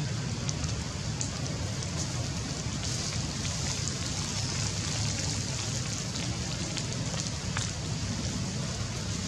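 Light rain falling through tree leaves: a steady hiss with scattered sharp drip ticks, over a steady low rumble.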